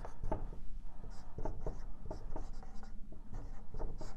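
Dry-erase marker writing on a whiteboard: a run of short, uneven strokes as a line of words is written out.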